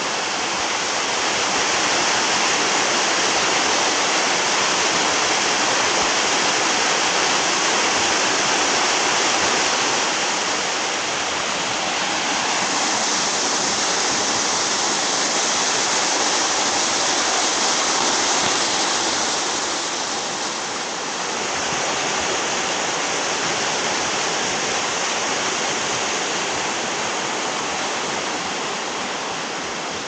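Small waterfall pouring down a rock face onto the rocks below: a steady, even rush of falling water.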